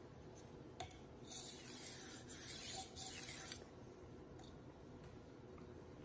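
Steel kitchen knife blade scraping across a whetstone on a guided sharpener: two hissing strokes between about one and a half and three and a half seconds in, with a light click of the guide before and after.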